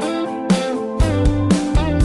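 Background music with a steady beat of about two thumps a second under sustained melody and bass notes.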